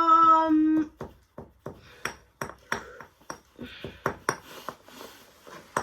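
A short high-pitched voiced 'oh' at the start, then a run of sharp, irregular clicks and clinks of hard pieces knocking together as the washing machine is being broken up.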